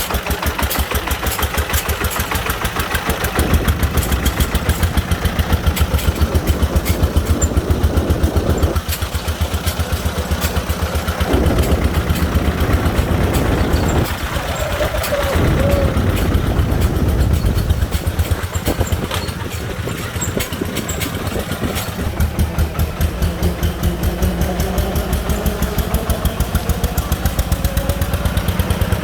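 Single-cylinder diesel engine of a công nông three-wheeler running under the load of sand, with an even rapid thudding beat that rises and falls in loudness several times, along with faint rising whines.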